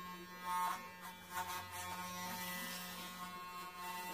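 Corded electric hair clippers running with a steady buzz as they cut short hair on a man's head.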